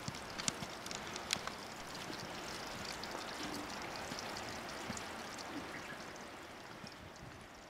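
Steady rush of meltwater running under a snowfield, with a few sharp clicks in the first second and a half; the rush fades near the end.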